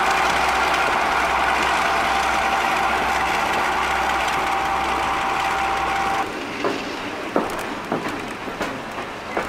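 Class 42 Warship diesel-hydraulic locomotive D821 with its engines running, a loud steady drone with a constant high whine over a low hum. About six seconds in it cuts to riding in a train, quieter, with the wheels clicking sharply and irregularly over the rail joints.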